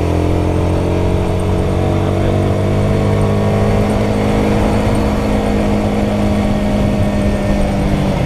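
Royal Enfield Guerrilla 450's single-cylinder engine pulling under way, its pitch climbing slowly as the revs build, then falling away near the end, with wind noise underneath.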